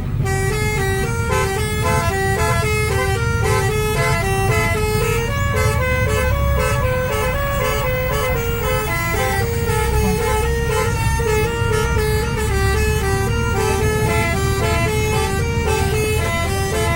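Basuri telolet horn playing a continuous tune of quick stepped notes, over a steady low engine rumble.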